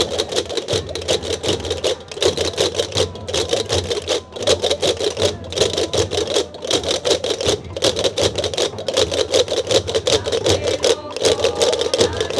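Many Gomeran chácaras (large wooden castanets) clattering fast and loud together over the beat of goatskin hand drums (tambores), with a few short breaks in the clatter.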